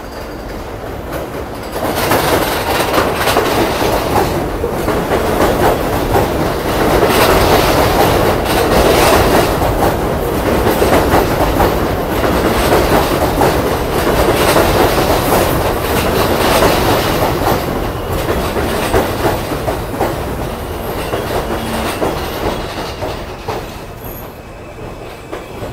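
R160B subway train pulling into an elevated station, its steel wheels clattering over the rail joints and squealing on the curve. The noise swells about two seconds in and dies down as the train slows near the end.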